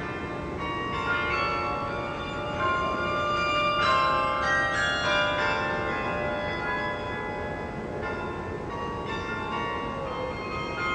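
The Campanile's carillon playing a tune: many bells of different pitches struck one after another, their tones overlapping and ringing on.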